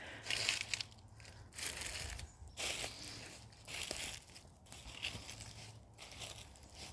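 Footsteps on the forest floor, a brushing, crunching step about once a second at a walking pace.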